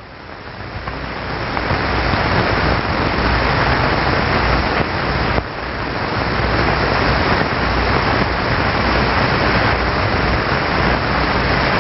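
Wind machine blowing a steady rush of air, building up over the first couple of seconds, with a brief drop about five and a half seconds in.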